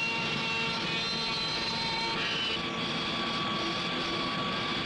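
Machine-shop milling machines cutting steel rifle receivers to shape: a steady mechanical roar, with thin high-pitched cutter whines that come and go.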